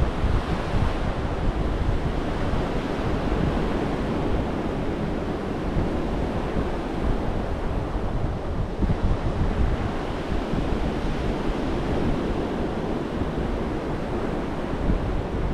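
Ocean surf breaking and washing up a sandy beach, a continuous rushing wash that swells and eases as waves come in, with wind rumbling on the microphone.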